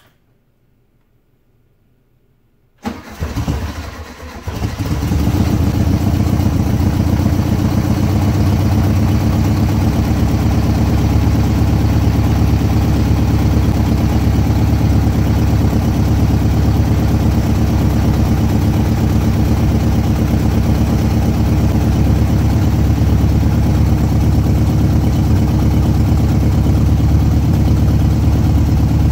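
1971 VW Beetle's air-cooled flat-four engine is cranked about three seconds in, catches within a second or two and settles into a steady run.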